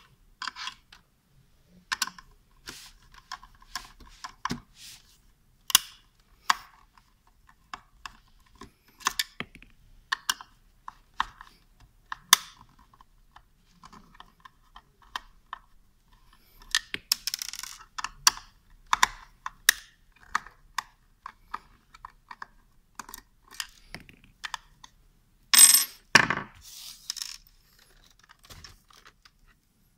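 Scattered small clicks and ticks of a screwdriver backing screws out of an Acer V226HQL monitor's plastic stand, with hands shifting the plastic parts. Near the end, a louder, brief clatter.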